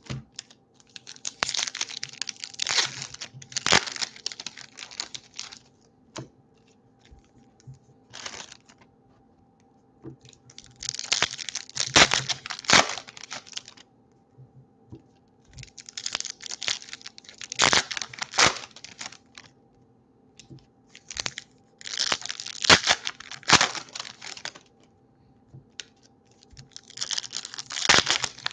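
Foil wrappers of Topps baseball card packs being torn open and crinkled by hand, in about five separate bursts of tearing and crackling a few seconds apart.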